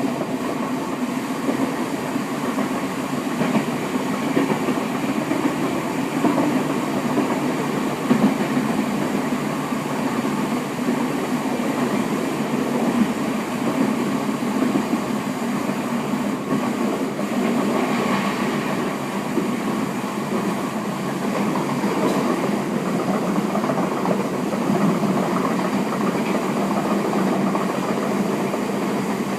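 Merseyrail electric train running at speed, heard from inside the carriage: a steady rumble of wheels on rails with faint clicks over the track.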